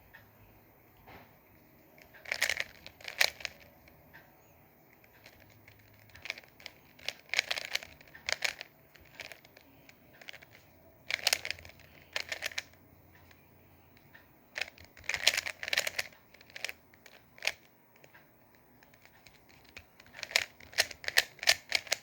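Rubik's Cube being turned by hand: bursts of rapid plastic clicking and clacking as the layers are twisted, separated by short pauses.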